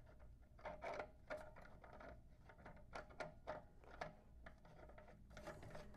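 Faint, irregular metallic clicks of a threaded steel hose fitting being turned by hand at a pressure-washer hose reel's inlet.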